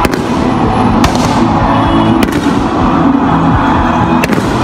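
Fireworks exploding: several sharp bangs a second or two apart, the first right at the start, with loud music playing underneath.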